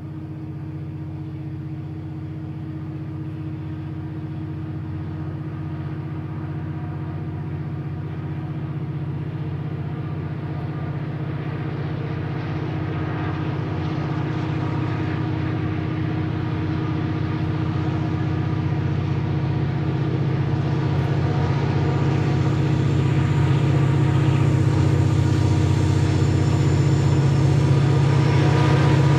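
Diesel locomotive hauling a passenger train as it approaches: a steady engine drone that grows steadily louder as the train comes nearer.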